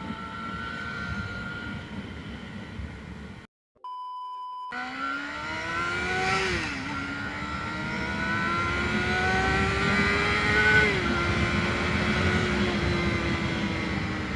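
Stock Yamaha FZ250 Phazer inline-four engine pulling hard under acceleration. The revs climb, drop at a gear change, climb again for several seconds, then ease off near the end. A few seconds in, the sound cuts out briefly behind a short steady beep.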